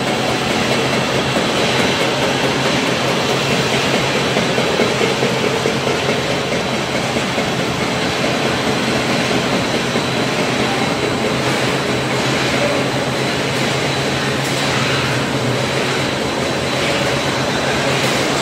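Machinery of an extruded fried-chips production line running: a loud, steady mechanical noise with a faint high whine.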